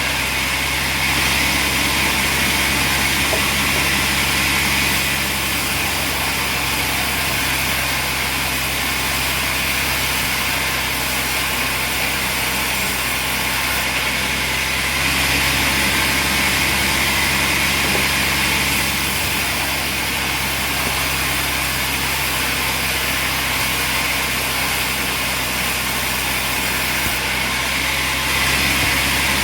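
Sawmill machinery running with a steady engine-like drone, its level swelling and easing slightly every several seconds.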